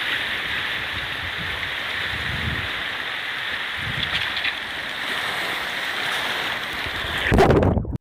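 Rushing whitewater of river rapids churning around a tube raft, a steady hiss of water. Near the end comes a louder burst of splashing, then the sound cuts off suddenly.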